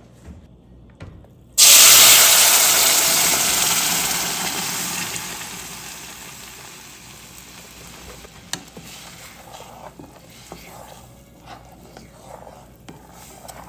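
Blended tomatillo and dried-chile salsa hits hot olive oil in a stainless steel pot with a sudden loud sizzle about a second and a half in, which dies down gradually over the next several seconds as the salsa starts to fry. After that come scattered light clicks and scrapes of a wooden spoon stirring against the pot.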